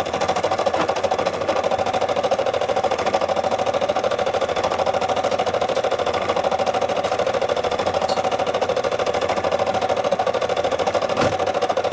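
Brother SE600 computerized embroidery machine stitching steadily, its needle running at a rapid, even rate while the embroidery arm moves the hoop. A single sharp click sounds near the end.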